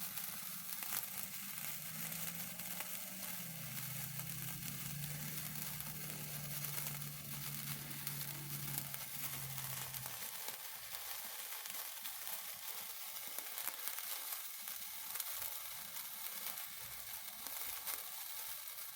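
Two gold wire-stick sparklers burning with a steady fizzing hiss and fine crackle. A faint low hum sits underneath until about ten seconds in.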